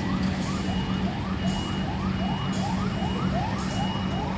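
Scania P360 tractor unit reversing, its DC11 inline-six diesel running with a steady low hum. Over it, a reversing alarm gives a high beep about every two-thirds of a second, along with a repeating rising siren-like whoop a little faster.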